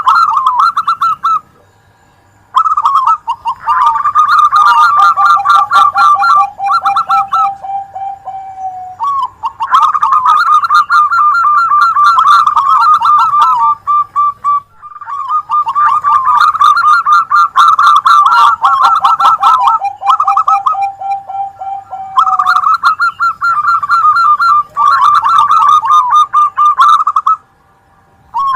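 Zebra doves (perkutut) cooing, two or more birds overlapping in long, rapid trilled phrases at different pitches, pausing briefly a few times.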